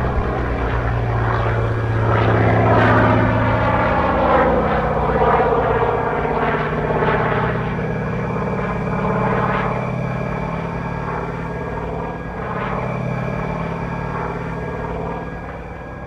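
Simulated radial-engine sound from an RC Pitts Model 12 biplane's onboard sound-effects system, mixed with propeller noise. A steady low engine note runs under a higher whine that swells and falls in pitch several times.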